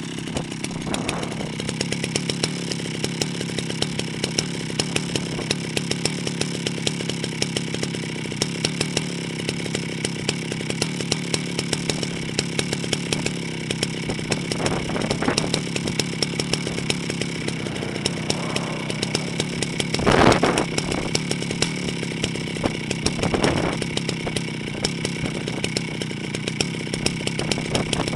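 Jonsereds 70E two-stroke chainsaw engine running steadily, with a few brief surges in level, the loudest about twenty seconds in.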